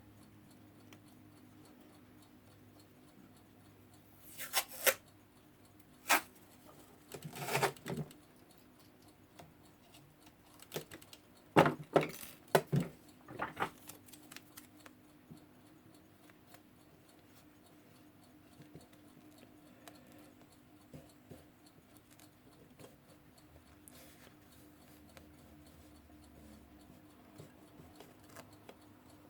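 Hands working tape around an alarm clock's glass: a few short rustles and clicks, bunched in the first half, then quieter with only a faint steady hum.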